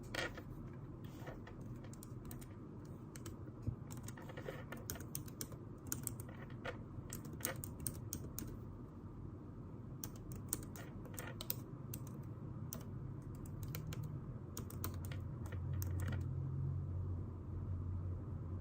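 Typing on a computer keyboard: irregular runs of keystroke clicks that stop about three-quarters of the way through. A steady low hum comes up near the end.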